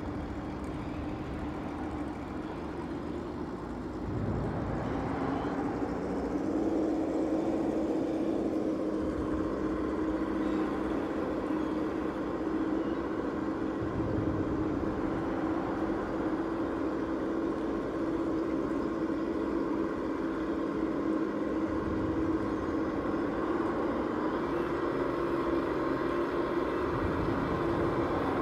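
Electric motor and gearbox of a Traxxas TRX-4 Defender RC crawler whining steadily as it crawls up a cobblestone slope, the pitch stepping up a little about four seconds in and again a few seconds later, then holding.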